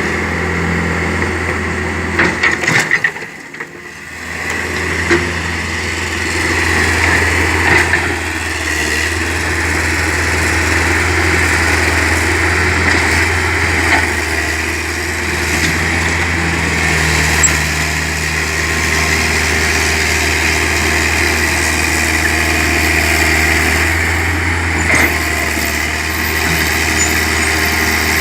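Excavator's diesel engine running steadily under work. There are a few sharp clatters and a brief dip in level about three seconds in, then it runs on with occasional knocks.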